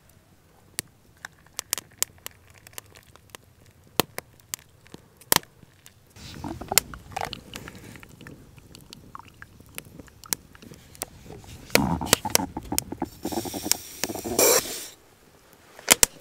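Handling of a camp coffee setup and an AeroPress-style coffee press: scattered light clicks and clinks, then scraping and a louder rushing, hissing stretch about two-thirds through as the press is worked over a mug.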